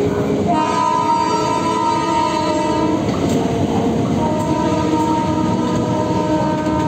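Indian Railways express train running with a steady loud rumble while its locomotive horn sounds two long blasts: one from about half a second in to about three seconds, and another from about four seconds in that is still going at the end.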